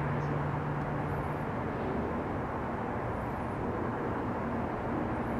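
Steady low rumble of outdoor background noise, like a distant engine, with a low hum that fades out about a second and a half in.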